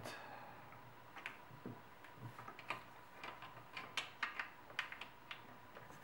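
Irregular light clicks and taps of a hand tool tightening a fastener on plastic intake parts.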